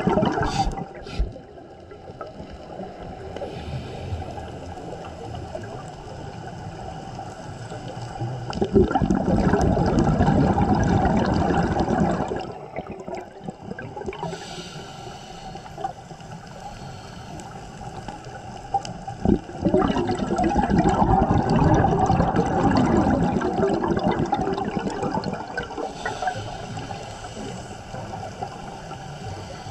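Scuba regulator breathing underwater, close to the microphone: slow cycles of a quieter hiss on each inhale and a louder gurgling rush of bubbles on each exhale, roughly every ten seconds.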